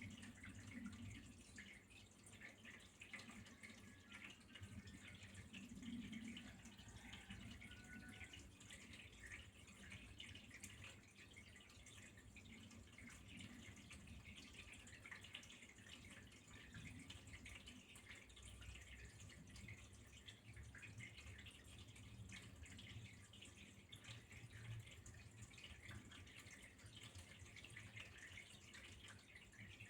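Faint trickling water with a continuous, irregular patter of small drips.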